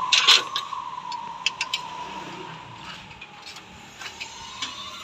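A steady mechanical whine holding close to one pitch, sagging slightly and rising again near the end, with scattered sharp clicks and taps, the loudest just after the start.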